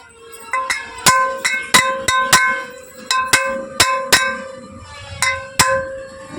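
A hammer repeatedly striking a thin metal rod to drive the stator out of a ceiling fan's motor housing: about fifteen sharp metal blows at two or three a second, each leaving a bell-like ring.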